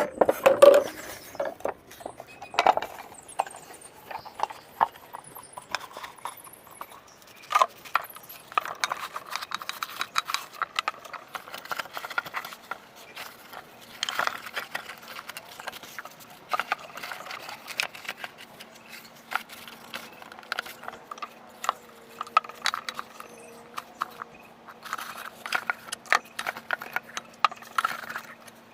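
Irregular clicks, taps and scrapes of small hard objects being handled and worked on, with a faint steady hum starting about halfway through.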